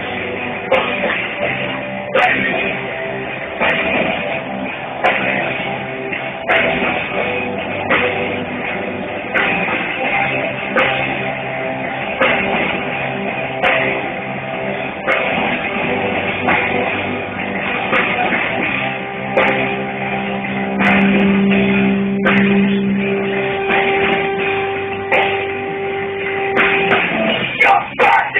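Rock band playing live through a PA: electric guitars over a steady drum-kit beat, with a long held note about two-thirds of the way in. The sound is thin and tops out early, as picked up by a phone's microphone.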